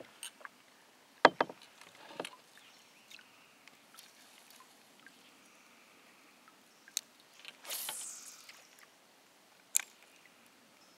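Kayak and fishing gear handled on the water: a few sharp knocks and clicks, the loudest a little over a second in, and a brief rushing hiss about eight seconds in.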